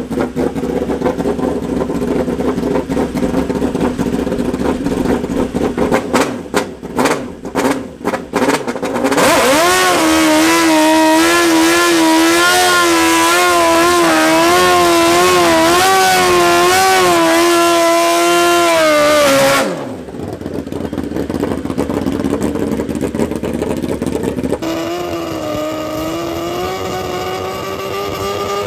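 Drag-racing superbike's engine running, blipped a few times, then held at high revs for about ten seconds with a wavering pitch during a rear-tyre burnout before falling back to idle. Near the end it is held at a steady raised rev as the bike stages at the start line.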